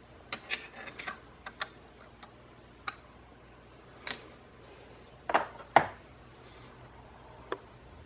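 Scattered light clicks and clinks, as of metal tools or parts being handled, with two louder knocks about five and a half seconds in.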